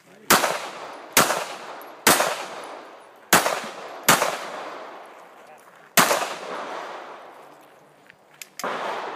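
Handgun fired six times: three shots about a second apart, two more a little over a second later, then a single shot after a pause of nearly two seconds, each with a ringing echo as it dies away.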